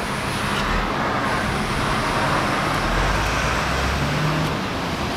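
A car engine running, a steady low rumble with hiss. The car has been running oddly, which the owner puts down to a ripped part in the engine bay.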